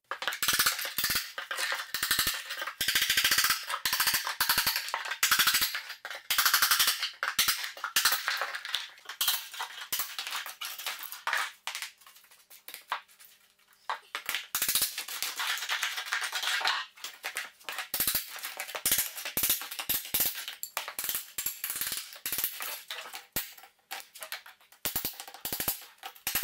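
A claw hammer strikes a steel chisel in quick runs of blows, chipping old plaster and mortar from the foot of a wall while loose rubble rattles down. The hammering pauses briefly about halfway through.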